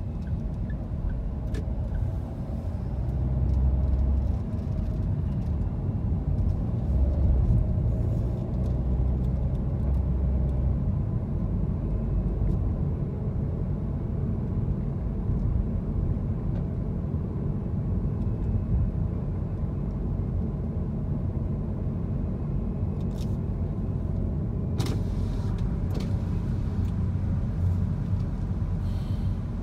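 A car driving in city traffic, heard from inside the cabin: a steady low rumble of engine and tyres on the road, swelling a little a few seconds in and again around seven seconds in. Two short hissing sounds come near the end.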